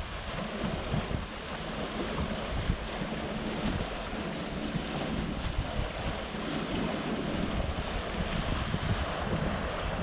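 Wind buffeting the microphone in an uneven low rumble, over the steady wash of sea surf against rocks.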